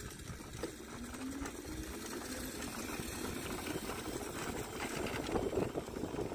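Hoverboard hub motors driving a go-kart whirring as it runs along asphalt. A whine rises in pitch from about one to two and a half seconds in, over steady tyre and road rumble.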